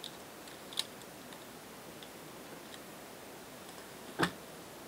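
Two clicks of a computer mouse, a light one about a second in and a louder, fuller one near the end, over a faint steady hiss.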